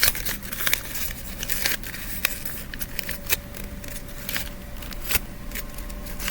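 Folded-paper origami clic-clac fidget toy being flipped through its shapes by hand: paper crinkling with irregular sharp clicks and snaps.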